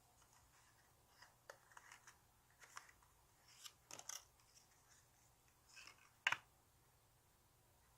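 Squishy toys and their plastic packaging being handled: scattered short rustles and light clicks, with one sharper click about six seconds in.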